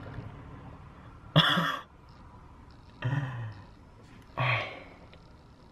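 A man's short distressed vocal sounds: a sharp, breathy burst about a second and a half in, then two brief groans with falling pitch, about three and four and a half seconds in, made in dismay.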